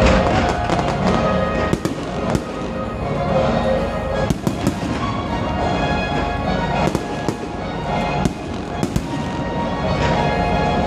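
Fireworks going off: sharp bangs and crackling at irregular intervals, with a loud burst at the start, over music playing along with the display.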